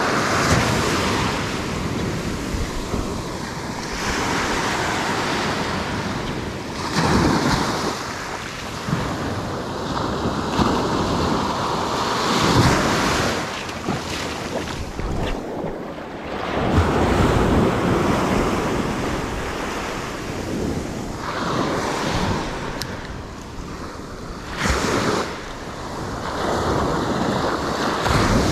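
Small surf waves breaking and washing up the sand, swelling and falling every few seconds, with wind buffeting the microphone.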